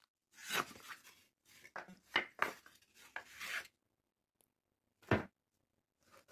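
Wooden boards being slid and scraped across a wooden tabletop and knocked together as they are laid out: a run of rubbing with several knocks lasting over three seconds, then one loud knock about five seconds in.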